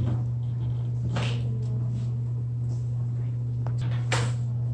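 Steady low electrical hum, with a few brief rustling or scuffing noises about a second in and again near the end.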